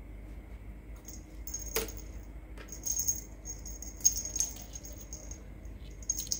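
Small jingle bell on a cat toy jingling in several short shakes, starting about a second in, with one sharp knock among them.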